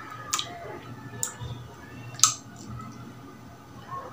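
Wet mouth and lip smacks of someone eating soft durian flesh off his fingers: three sharp smacks, the loudest about two seconds in.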